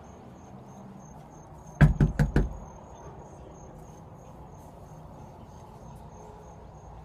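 Four quick knocks on a door, in a fast run lasting about half a second.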